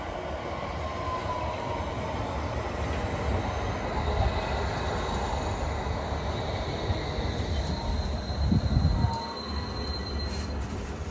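A London Underground S8 stock train pulling into the platform and braking to a stop. A steady rumble of wheels on rail carries faint high squeals over it. The rumble swells to its loudest about eight and a half seconds in, then eases as the train halts.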